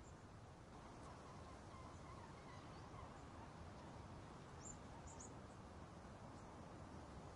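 Quiet outdoor ambience: steady low background noise with a few faint, high bird chirps about five seconds in.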